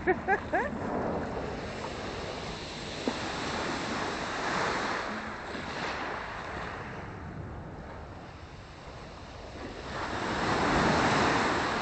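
Black Sea surf washing onto the beach, a steady wash that swells about four seconds in and again near the end, with wind on the microphone.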